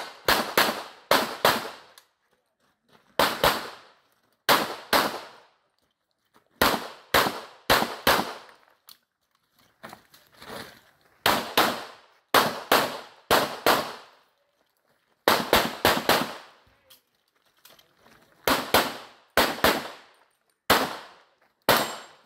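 Pistol shots fired in rapid pairs, double taps about a quarter-second apart, in strings of two to six shots broken by pauses of a second or two while the shooter moves between positions. Each report has a short echoing tail.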